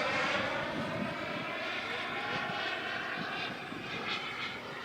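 Turbine-powered RC jet flying past, its engine's rushing whine fading steadily as it moves away.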